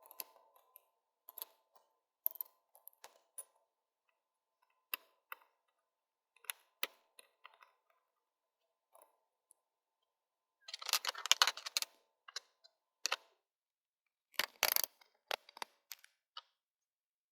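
Small clicks and knocks of plastic and metal parts being handled as a 3D-printed stepper motor housing and its screws are fitted onto a 3D printer's Y-axis stepper motor, with a louder clatter of rattling about eleven seconds in and another about fourteen and a half seconds in.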